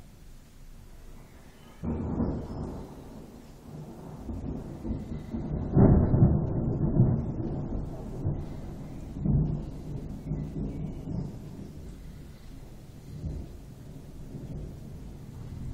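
Thunder rumbling: a sudden loud crack-and-roll about two seconds in, swelling to its loudest rolls around six seconds, then fading away in further, weaker rumbles.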